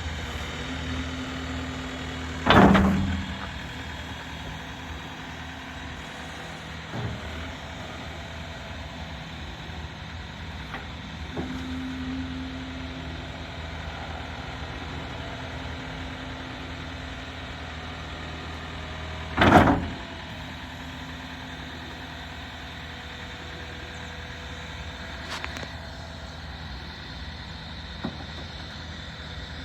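Diesel engine of a compact track loader running steadily, with a faint held tone now and then. Two loud, short bangs stand out, one near the start and one about two-thirds of the way through.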